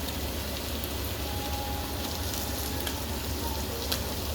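Sheepshead fillet frying in a pan: a steady sizzle with a few sharp pops of oil.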